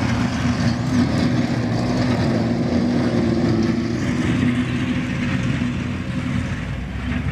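Tracked armoured vehicle engine running with a steady low drone, easing slightly near the end.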